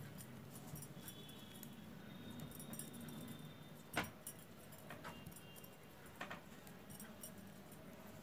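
Knitting needles clicking faintly as stitches are worked, with one sharper click about four seconds in and a weaker one a couple of seconds later.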